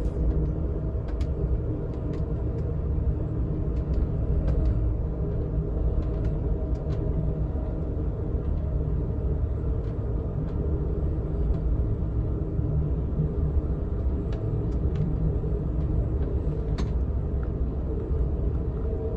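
Steady low rumble of a passenger train car rolling along the rails, heard from inside, with scattered faint clicks.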